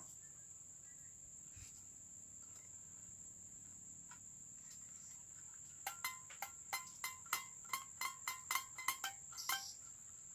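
Homemade toy guitar of carnaúba palm stalks strummed about a dozen times from about six seconds in, short twangy notes roughly three a second that stop about a second before the end, over a steady high-pitched background tone.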